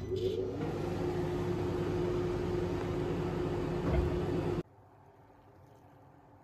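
1200-watt microwave oven running: a steady hum with a low buzz and a held tone, with a soft bump shortly before it cuts off suddenly about two-thirds of the way through, leaving only faint room tone.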